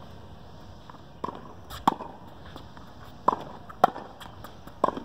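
Tennis ball in a baseline rally on a hard court: a string of sharp pops from racket strikes and ball bounces, about six in all, coming roughly in pairs a little over a second apart.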